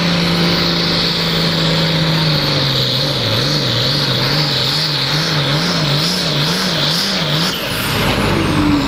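International Harvester hot farm pulling tractor's 466-cubic-inch diesel engine at full power under sled load. The engine note holds steady, then from about two seconds in its pitch swings up and down over and over, about once a second, until a change near the end.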